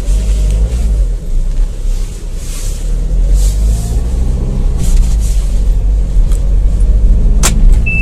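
Interior sound of a Mahindra Marazzo's 1.5-litre diesel engine and the road, heard from inside the cabin while driving, with a heavy low rumble throughout. There is a single sharp click near the end. Right at the end a high, steady seat-belt warning beep starts, because the driver's own belt is not fastened.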